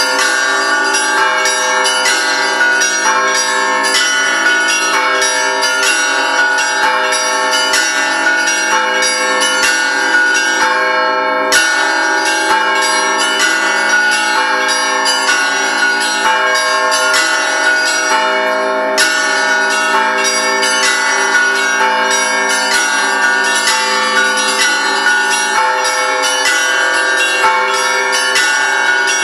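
Russian Orthodox church bells rung in a continuous peal. Many bells of different pitches are struck in quick succession, their tones overlapping and ringing on.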